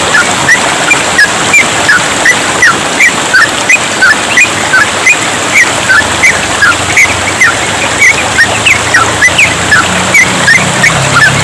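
Yellow-vented bulbuls singing a continuous run of short chirping notes, two or three a second, over the steady hiss of trickling water.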